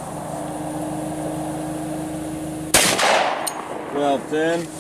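A single pistol shot from a 10mm Glock Model 40 firing a 180-grain Hornady XTP round, a sharp crack about three seconds in with a short fading echo.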